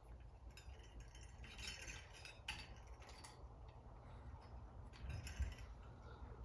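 Faint small metallic clinks and rustling as hands work the wiring at a ceiling fan's open switch housing, with a soft low thump about five seconds in.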